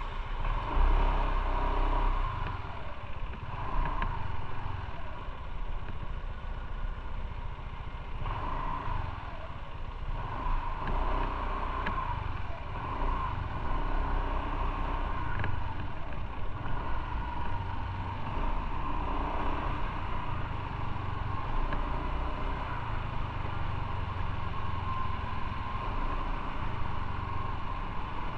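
Motorcycle engine running while riding in city traffic, its pitch rising and falling with the throttle and gear changes, loudest about a second in.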